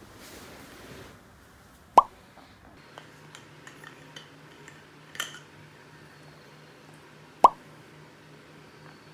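A short cartoon-style "plop" pop sound effect with a quick drop in pitch, heard twice about five and a half seconds apart. In between come light clicks and a clink from the stainless steel lid of a flask being twisted.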